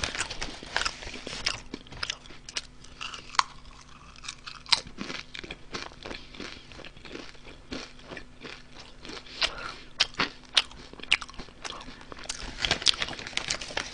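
Crunching and chewing on Honey Butter potato chips, a string of short crisp crunches, with the foil snack bag crinkling as a hand reaches in for more.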